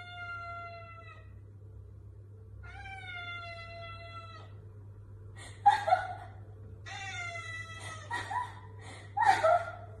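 Tabby cat meowing: two long drawn-out meows, each sliding slightly down in pitch, then a run of shorter, louder, rougher meows in the second half.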